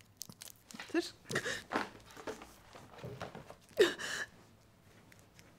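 A distressed woman's short, breathy vocal sounds: a few gasps and whimpering murmurs, the last and loudest about four seconds in.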